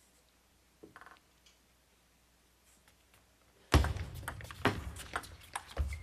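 Table tennis rally: sharp clicks of the ball striking rackets and the table, about two a second, starting suddenly about two-thirds of the way in over a low background din, after a quiet stretch with a faint tap or two.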